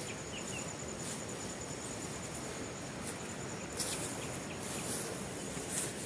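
An insect trilling in a steady, high, faintly pulsing note over quiet outdoor ambience. It stops about two-thirds of the way through, and a few short brushing rustles follow.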